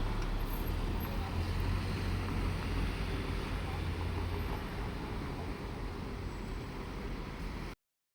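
Diesel railcar engine running with a steady low drone, cutting off suddenly near the end.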